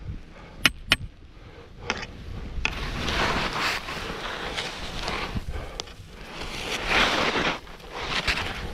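Skis sliding and turning through soft snow: a hiss that swells and fades with each turn, after two sharp clicks about a second in.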